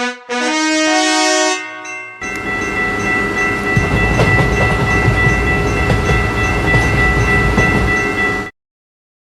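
A short run of musical notes, then a train passing: a loud rumble and clatter under a steady horn tone, which cuts off suddenly near the end.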